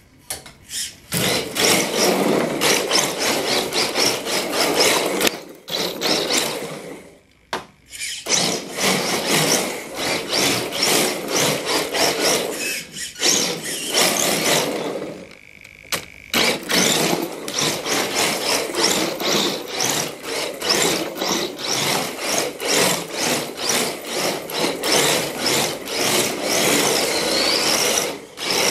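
Exceed RC Drift King electric drift car sliding on a hardwood floor: a rough, rasping scrub of the tyres on the wood, with squeals and motor whine, in long runs broken by short pauses about seven and fifteen seconds in.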